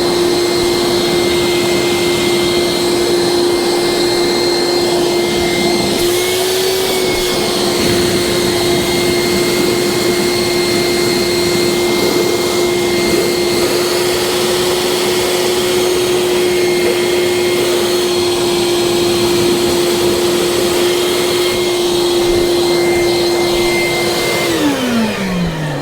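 Wet/dry shop vacuum running steadily, sucking water out of an air conditioner's condensate drain. Near the end it is switched off and its motor whine falls in pitch as it spins down.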